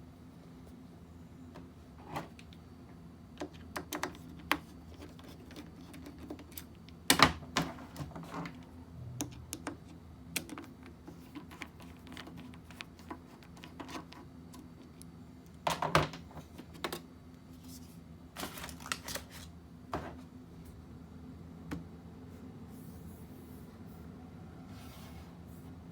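Irregular clicks and clacks of hands working on a laptop's plastic case and small parts, with the loudest clatters about 7 and 16 seconds in, over a steady low hum.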